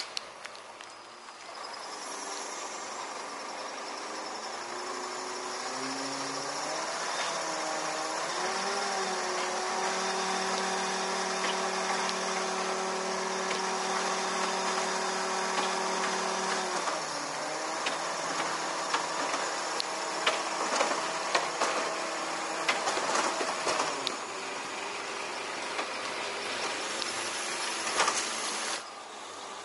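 Truck-mounted ladder lift running: engine and hydraulic winch whine as the platform travels along the boom. The whine glides in pitch, holds steady for several seconds, then glides again, with scattered sharp ticks. It cuts off suddenly near the end.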